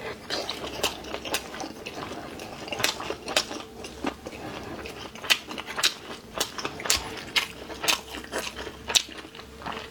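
Close-miked chewing of a rolled noodle-sheet (liangpi) roll with chili filling: wet mouth sounds with irregular crisp clicks and crunches, one or two a second.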